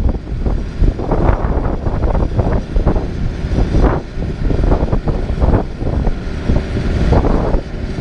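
LeeBoy 8515B asphalt paver's diesel engine and the dump truck feeding it running together: a steady low rumble with irregular rushing noise swelling over it.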